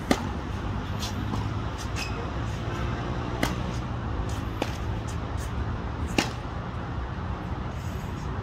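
Tennis balls struck by rackets on an outdoor hard court: a sharp pop of a serve about a tenth of a second in, the loudest sound, then further hits or bounces every second or two, over a steady low rumble of background noise.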